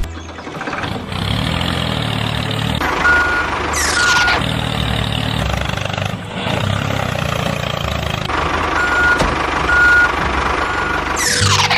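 Truck engine running with short evenly pitched reversing beeps, two and then three, and a fast falling whoosh twice, about four seconds in and at the end.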